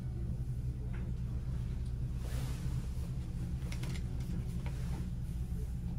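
Steady low background rumble, with a few faint rustles and ticks.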